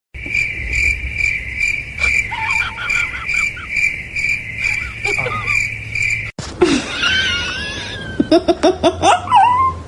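A high, steady chirping that pulses about three times a second, like crickets, with a few short squeaky cries over it. After a sudden cut about six seconds in come wavering cries and then a quick run of short rising calls.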